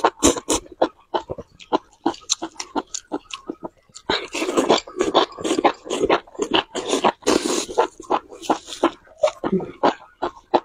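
Close-miked eating: rapid wet chewing and mouth clicks, growing thicker and noisier from about four seconds in to about eight.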